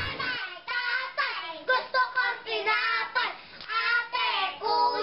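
Several children's high voices at play, singing and calling out over one another.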